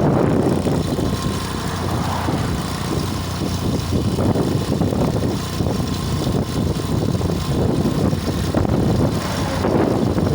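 Steady rumbling wind and road noise on the microphone of a moving mountain bike, with the hum of passing traffic mixed in.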